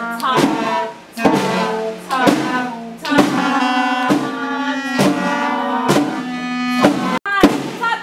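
Student band of trumpets, clarinet, saxophones and horn playing a tune together in held, stepped notes, with drum hits on the beat. The music breaks off for an instant near the end, then carries on.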